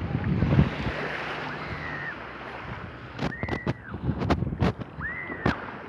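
Wind buffeting the microphone over small waves washing up onto a sandy shore, with the buffeting heaviest in the first second. Three short high calls rise and fall, about one and a half, three and five seconds in, and a few sharp knocks come in the second half.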